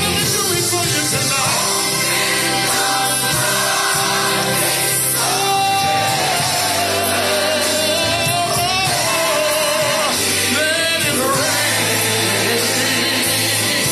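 Loud gospel worship music: a singing voice with sliding, wavering notes over instrumental backing.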